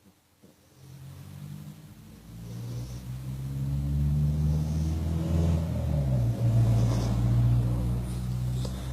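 A motor vehicle's engine, a steady low-pitched hum that builds over the first few seconds and stays loud, its pitch dipping briefly about six seconds in.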